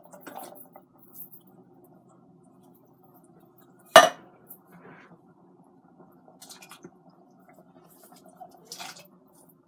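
Canned kidney beans being emptied from tin cans into a stainless-steel cooking pot, with soft scrapes and plops. A tin can being handled against the pot and counter gives one loud, sharp metallic clank about four seconds in, and there is a smaller scrape near the end.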